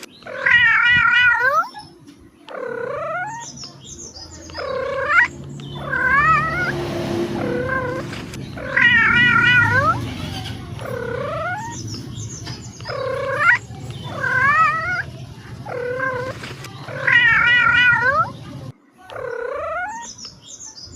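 Domestic cat meowing over and over, about one meow every second or so. Some meows are long with a wavering pitch, others are short and dip then rise. A low steady rumble runs underneath for most of the stretch.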